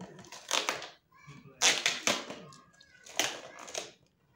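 Scissors cutting and ripping through a cardboard-and-plastic parcel wrapping, in three rough crinkly bursts.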